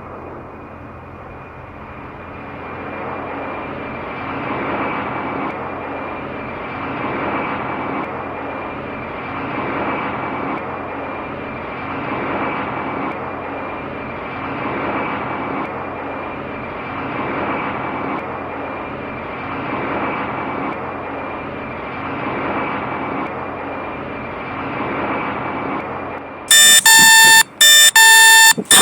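Steady rushing, engine-like noise with a low hum and a faint high whine, swelling and fading about every two and a half seconds. Near the end a loud, harsh electronic alarm cuts in, breaking off briefly twice.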